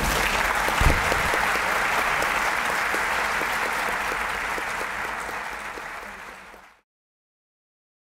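Audience applauding steadily, with a single low thump about a second in; the applause fades out and drops to silence shortly before the end.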